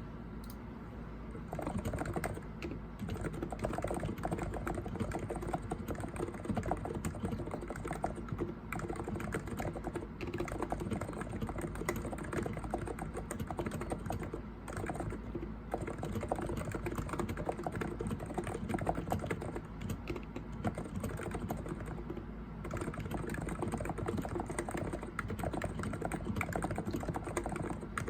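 Continuous typing on a Cox Endeavor electrostatic capacitive (contactless) keyboard with 50 g switches: a steady stream of rapid keystrokes that starts about a second and a half in.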